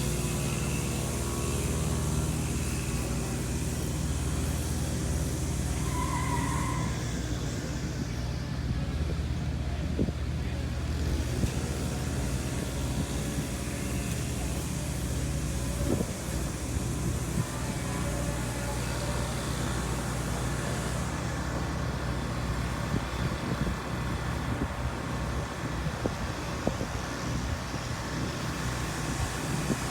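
Steady low rumble of engines and road traffic, with a brief higher tone about six seconds in.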